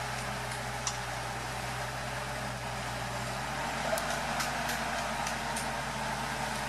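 Forklift engine running steadily, a low hum whose note shifts about halfway through, with a few light clicks.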